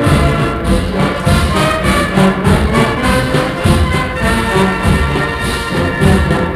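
Brass band playing a dobrado, a Brazilian military-style march, with a steady marching beat.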